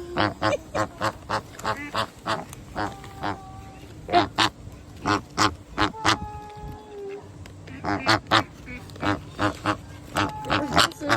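Flamingos honking: many short, nasal, goose-like calls in quick succession, two or three a second, with a brief lull about seven seconds in.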